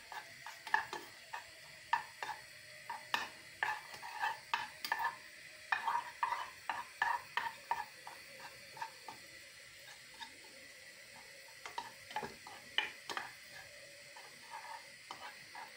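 Spoon stirring tomato paste and garlic as they fry in oil in a small saucepan: frequent light taps and scrapes against the pan over a faint sizzle.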